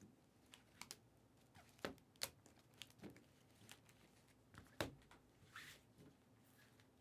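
Sparse, quiet clicks and taps of hands working at a desk, with a short rustle about five and a half seconds in.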